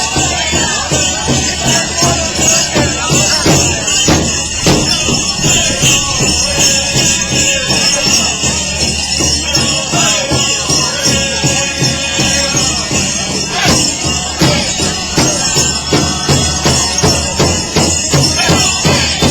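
Powwow drum group beating a large shared drum in a steady, even beat while the singers chant, with the jingling of dancers' bells and regalia over it.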